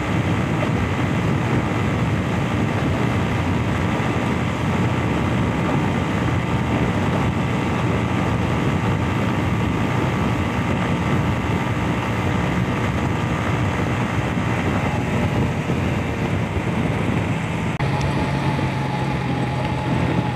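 Honda CG 125's single-cylinder four-stroke engine running steadily at cruising speed, under heavy wind rush on the helmet-mounted microphone. About two seconds before the end the wind eases and the engine note settles as the bike slows.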